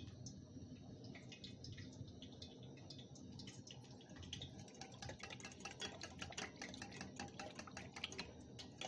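Water being stirred in a steel mug: a faint swishing, with quick light clinks against the metal from about halfway through.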